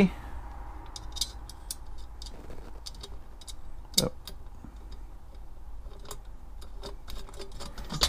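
Small screws being turned in by hand against a steel hard-drive caddy: scattered light metallic clicks and ticks, with one sharper click about four seconds in.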